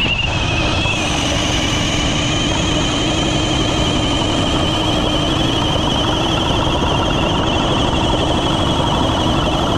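Cordless drill running on a DeWalt battery, driving an ice auger through the ice: a steady, loud motor whine under load that starts abruptly and holds without a break.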